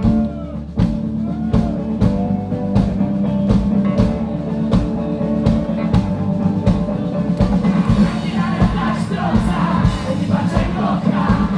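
Live rock band playing: drum kit keeping a steady beat of about two hits a second under bass and electric guitar. About eight seconds in the band sound grows fuller and busier.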